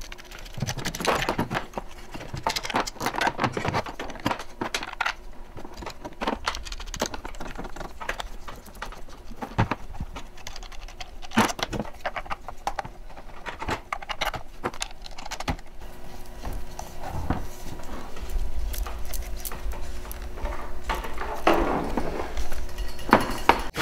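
Hard plastic and metal parts of a Torqeedo throttle and its extension arm being handled and fitted together on a bench: a run of irregular clicks, taps and light clinks.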